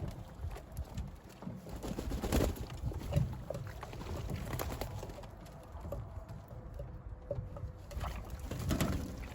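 Pigeons bathing, splashing water in irregular splashes.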